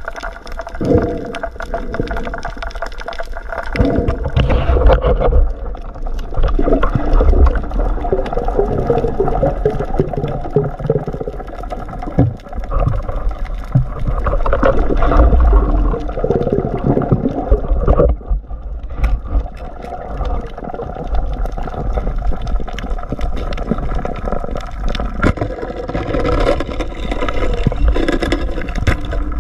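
Muffled underwater sound from a camera in a waterproof housing: water gurgling and sloshing over a continuous low rumble, rising and falling in loudness.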